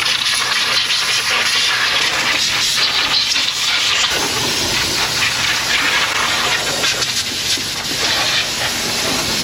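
A loud, steady hiss of rushing air or spray, strongest in the high range, that starts and stops abruptly.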